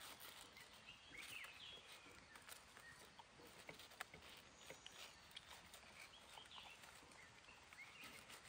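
Near silence: faint forest ambience with a few soft bird chirps and occasional small clicks.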